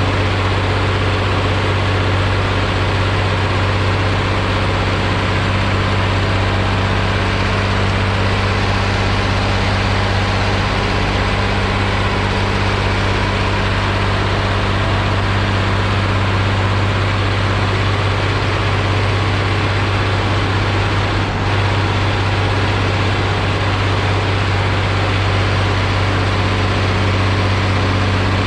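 Ursus 1201 tractor's six-cylinder diesel engine running steadily, a loud, even, low note with no change in pitch.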